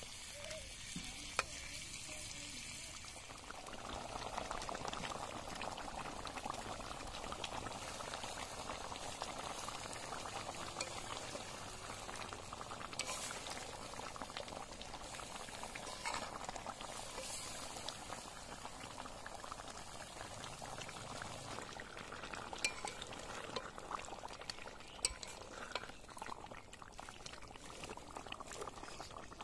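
Thick pork and potato curry bubbling and sizzling in a metal wok, with a metal spatula stirring and now and then clicking and scraping against the pan.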